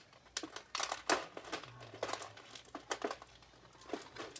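Crinkling and rustling of things being handled, with irregular sharp clicks and crackles.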